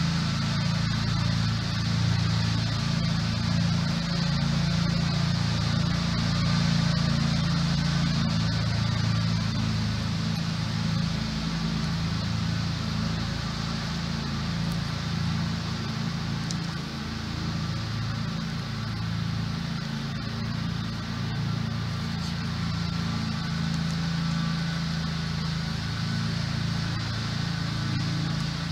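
Steady low mechanical hum with an even hiss above it, unchanging throughout.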